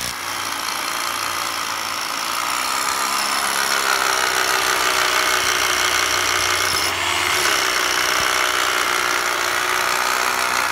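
Electric hammer drill with a long masonry bit running steadily under load, boring into the concrete inside an old concrete septic tank to break out its outlet baffle.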